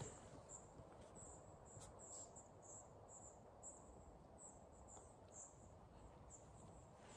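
Near silence broken by faint, high-pitched chirps, about two to three a second at an uneven pace, from a small creature.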